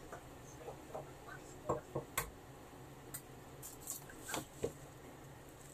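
Eggs being tapped and cracked against a bowl, with dishes being handled: a scattering of short taps and clicks, a cluster of sharper ones about two seconds in.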